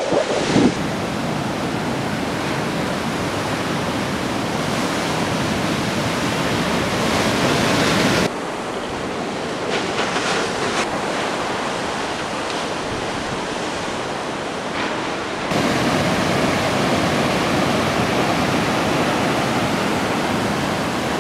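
Steady rushing noise with no distinct events, shifting abruptly in level and tone about eight seconds in and again about fifteen seconds in.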